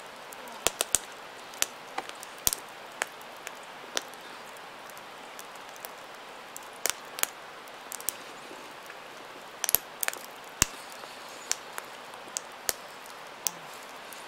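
Wood campfire crackling, with irregular sharp pops and snaps, a few of them louder.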